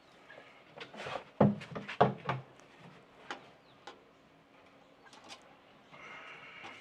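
A quick run of knocks and clatters about a second in, followed by a few lighter clicks.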